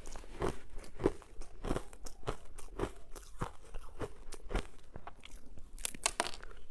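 Ice being crunched and chewed between the teeth close to the microphone, in steady bites a little under two a second, with a sharper, brighter crackle about six seconds in.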